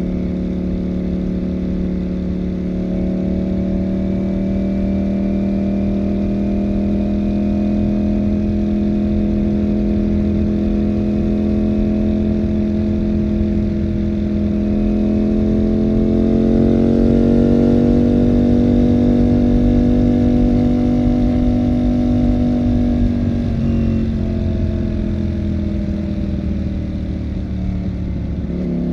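Ducati Panigale V4 motorcycle's V4 engine pulling at a steady cruise. Its note climbs to higher revs about halfway through and holds, with a brief dip in revs near the end, like a gear change.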